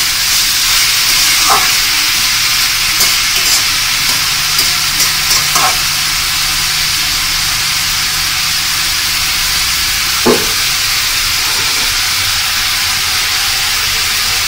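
Sliced bitter gourd and potatoes frying in hot oil in a karahi, a steady sizzle, with a few short scrapes of the spatula as the mixture is stirred.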